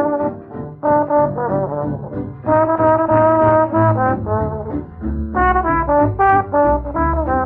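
Music led by brass horns playing a melody, with a deeper bass part growing louder about five seconds in.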